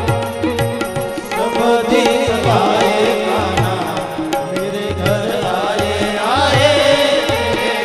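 Indian devotional music: harmonium holding sustained notes, with a tabla pair keeping a steady rhythm and a voice singing long gliding phrases.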